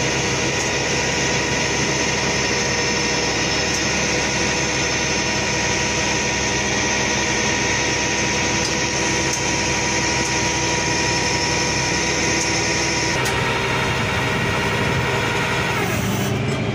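Flatbed tow truck's engine and hydraulic winch running steadily while a car is pulled up onto the tilted bed. The high steady tone in it stops about thirteen seconds in, and the sound changes again near the end as the loading ends.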